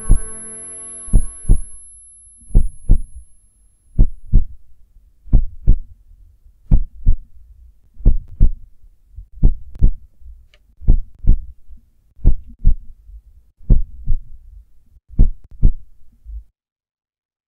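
Heartbeat sound effect: a slow, steady double thump about every one and a half seconds that stops abruptly near the end. A thin high ringing tone, like ears ringing after a gunshot, fades out in the first few seconds.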